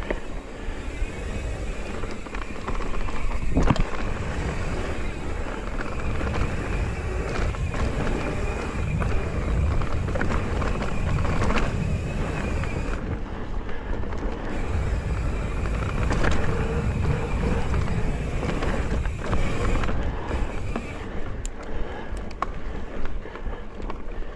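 Mountain bike riding over dirt singletrack: a steady rumble of tyres on the trail and wind on the handlebar-mounted camera's microphone, with a few sharp knocks from bumps, the loudest about four seconds in.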